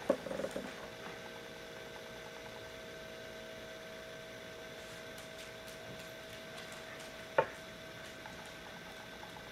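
Quiet room tone with a steady electrical hum, a brief soft rustle at the start as a small dog is held in a tight hug, and one sharp click a little past seven seconds in.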